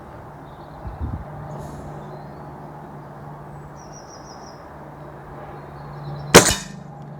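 A single shot from an Air Arms TX200 Hunter Carbine .177 underlever spring-piston air rifle: one sharp crack about six seconds in. Birds chirp briefly over a steady low hum.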